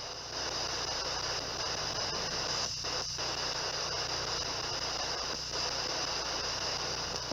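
S-Box ghost box scanner sweeping the FM band in reverse: a steady radio static hiss over a low hum, with a few short dropouts as it steps between stations.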